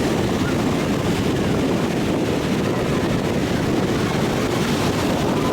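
Steady wind rushing over the microphone, with ocean surf washing in behind it.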